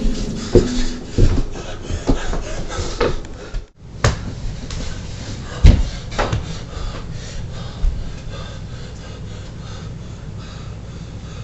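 A series of irregular knocks and thumps, the loudest a heavy thump about halfway through, then a steady low room hum.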